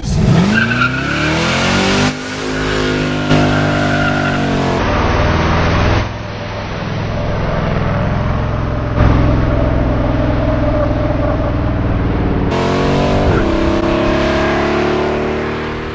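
A classic Dodge Charger's V8 accelerating hard, spinning its rear tyres. The revs climb and fall through gear changes over several short clips.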